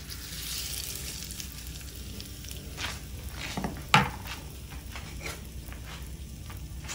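Hot tempering oil sizzling as it is poured into ground ginger chutney, with a few sharp clicks about three to four seconds in.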